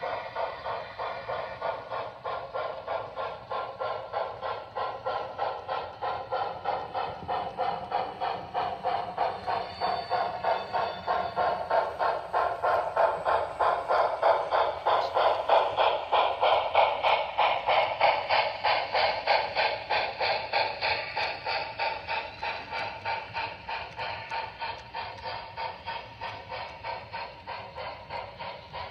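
Sound decoder of a model Reading T1 4-8-4 steam locomotive chuffing in a fast, steady rhythm at running speed. The chuff grows loudest about halfway through as the locomotive passes close by, then fades as the hopper cars roll past.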